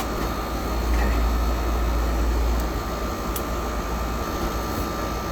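Steady low background rumble with a constant high-pitched hum, a little louder for a couple of seconds about a second in, and a faint click or two.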